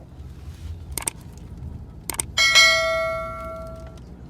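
Two sharp clicks, then a small bell rings once and fades away over about a second and a half.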